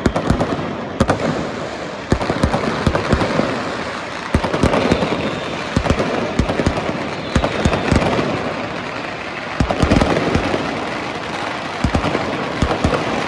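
Many fireworks and firecrackers going off across a city at once: a dense, continuous crackle with frequent irregular loud bangs, echoing off the surrounding apartment buildings.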